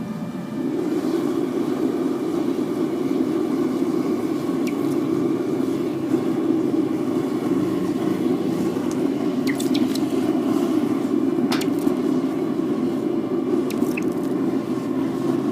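Forced-air propane burner on a metal-melting furnace running steadily, stepping up in level about half a second in. A few sharp crackles come through it as molten aluminum drips into water.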